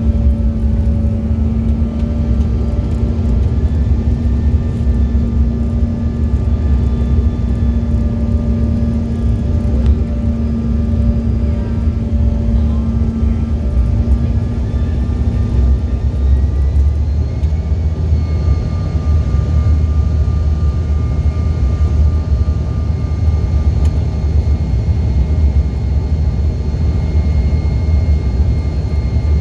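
Jet airliner cabin noise in flight: a steady, loud low roar with engine tones running through it. About halfway through, one low hum drops away and higher engine whines glide up in pitch, then hold steady.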